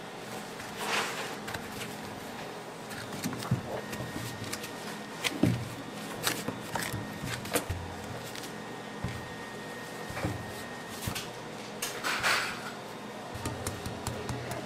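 Scattered taps, knocks and soft thuds of a large log of warm pulled candy being pressed and rolled by gloved hands on a work table, with a couple of brief scraping sounds, over a steady room hum.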